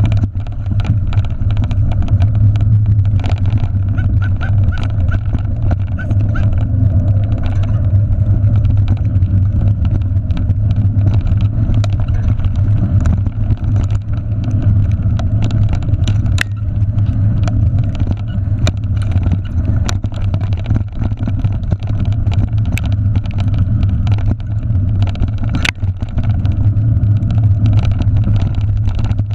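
Steady, loud rumble of wind and tyre noise picked up by a handlebar-mounted camera as a bicycle rolls fast along a muddy dirt trail, with a few sharp clicks in the second half.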